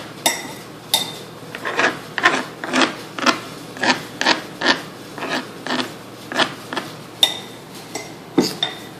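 Knife strokes on a cutting board, a rasping cut repeated about twice a second, some strokes with a faint metallic ring.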